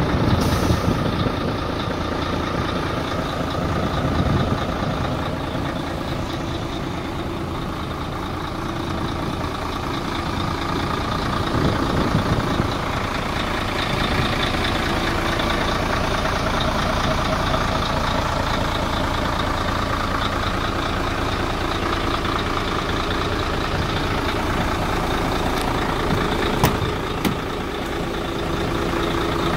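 Mercedes-Benz Actros 1841's V6 diesel engine idling steadily. Two sharp clicks come near the end.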